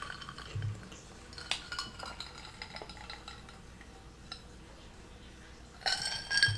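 Faint, scattered clicks of cutlery and dishware at a meal. Near the end a drinking glass clinks and rings with a clear held tone.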